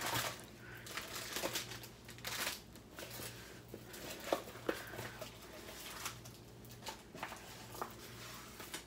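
Clear plastic film on a rolled diamond-painting canvas crinkling and rustling as the canvas is unrolled and smoothed flat by hand, in scattered short crackles.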